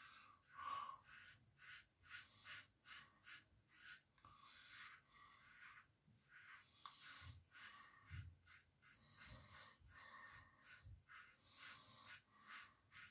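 Faint, short scraping strokes of a Tatara double-edge safety razor (Nodachi cap, Masamune base plate, BIC blade) cutting stubble through shaving lather on the first pass. The strokes come two or three a second in runs, with short pauses between them.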